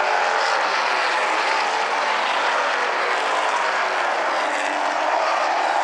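Super late model stock cars' V8 engines running at racing speed, several cars at once, making a steady, dense drone.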